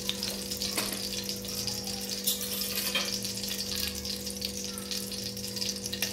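Ghee melting and sizzling in a hot steel kadhai: a steady fine crackle, over a steady low hum.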